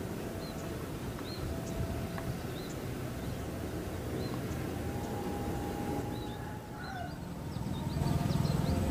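Small birds chirping again and again over a steady low rumble. Near the end the rumble grows louder as a diesel locomotive hauling a passenger train approaches.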